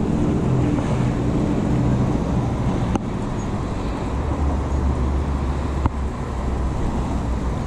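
City street traffic: a steady hum of car engines and road noise with a deeper low hum from about four to seven seconds in, and two short clicks around three and six seconds in.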